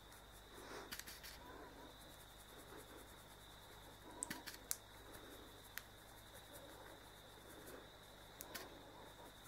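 Near silence: room tone with a faint, steady high-pitched whine and a few faint clicks, the loudest a little over four seconds in.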